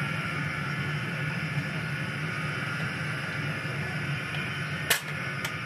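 Homemade gas furnace burner running steadily on a low setting, a continuous roaring hiss with a low hum under it, while a crucible of silver heats up. A sharp click sounds near the end, followed by a fainter one.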